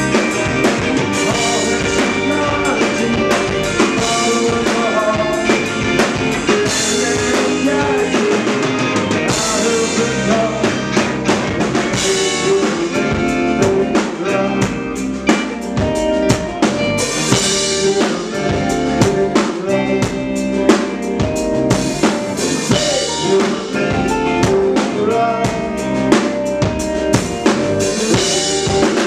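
A rock band playing live: a drum kit with frequent snare, bass-drum and cymbal hits over electric guitars and bass guitar.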